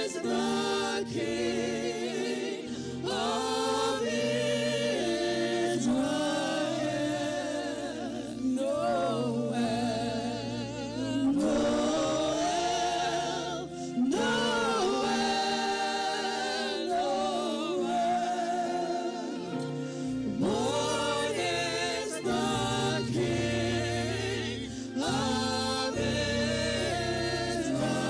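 Gospel worship singing: a lead vocalist and backing singers on microphones, with strong vibrato on held notes over steady sustained low accompaniment.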